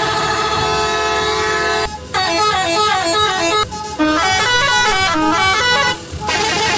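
Telolet multi-tone horn of an odong-odong mini tourist train playing a tune: a held chord, then quick runs of stepping notes, broken by short pauses about two, four and six seconds in.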